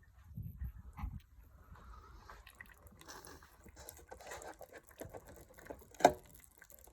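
Used engine oil dripping and trickling from a car's sump into a drain pan, with a sharp knock about six seconds in.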